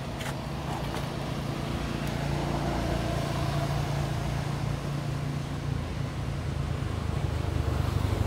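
A motor vehicle's engine running, a low steady hum that drops in pitch and grows louder toward the end.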